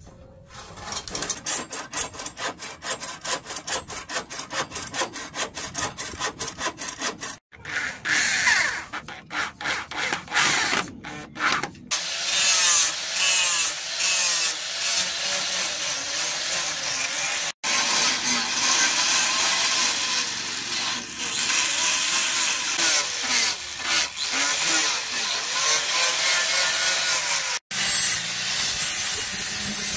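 A hand bow saw cutting through a wooden axe handle in quick, even back-and-forth strokes. About twelve seconds in, an angle grinder takes over, grinding the steel of an axe head cut from a tractor plough disc, steady and louder, with two brief dropouts.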